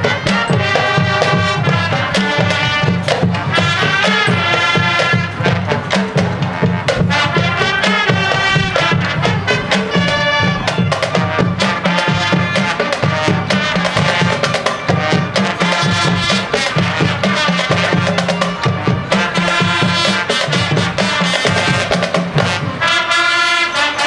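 High school marching band playing: brass sections holding chords over a steady beat from the drumline.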